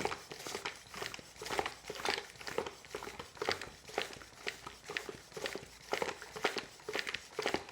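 Bicycle tyre pump being worked by hand to inflate a mountain bike tyre: a regular run of short hissing strokes, about two a second.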